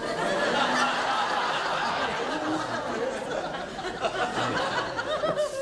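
Studio audience laughing, many voices at once, breaking out suddenly and dying away after about five seconds.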